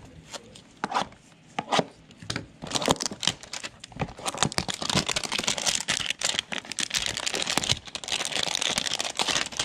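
Panini Prizm basketball-card hanger box being torn open by hand: a few light clicks and handling sounds, then several seconds of continuous tearing and crinkling of the packaging.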